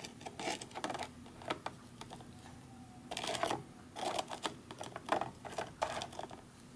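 A table knife scraping and tapping on a crispbread cracker as soft sausage is spread on it: scattered small clicks, with two short scrapes about three and four seconds in.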